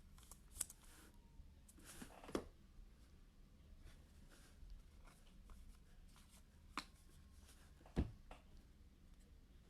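Faint handling of trading cards and their packaging: soft rustling with a few light clicks and taps, and one low thump about eight seconds in.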